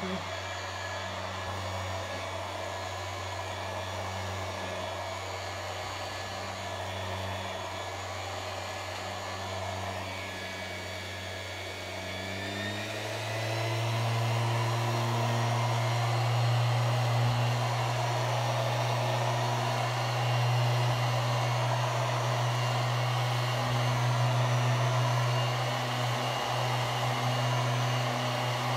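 Electric random orbital sander running steadily as it buffs wax on a wooden tabletop, a continuous motor hum with the whir of the pad on the wood. About thirteen seconds in, the hum steps up slightly in pitch and gets louder.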